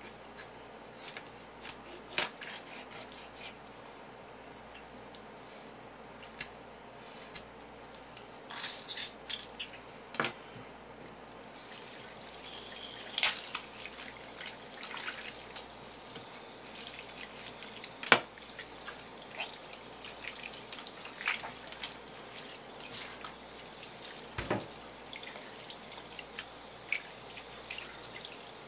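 Knife work on a pufferfish on a wooden cutting board: scattered clicks and taps. About eleven seconds in, a faucet starts running, a steady stream of water splashing over the fish and hands as it is washed, with drips and occasional knocks on the board.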